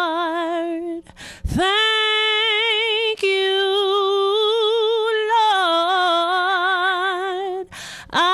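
Solo female gospel voice singing a cappella: long held notes with vibrato. There is a short breath about a second in and another near the end.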